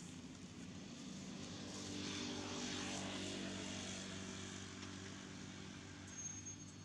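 Distant engine drone passing by, with the rising and fading sound of a propeller aircraft overhead. It grows louder to a peak two to three seconds in and then slowly dies away.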